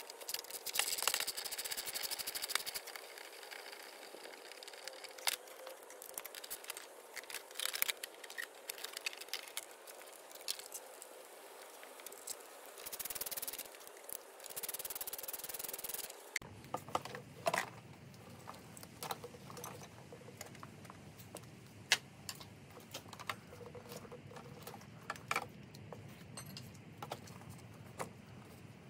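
The plastic headlight cowl and wiring of a Yamaha XT600 being handled and worked loose by hand: quiet rubbing and scraping of plastic, with scattered light clicks and knocks.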